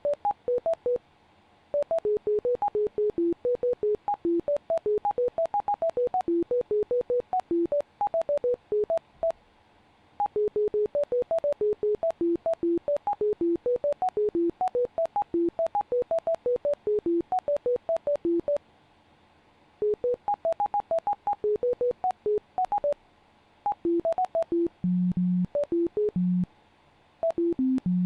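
Rapid sequence of short electronic beeps at constantly changing pitches, several a second, broken by brief pauses every few seconds, with a few lower tones near the end. These are the treatment tones of the bioresonance NLS software as it runs metatherapy automatically through an item list.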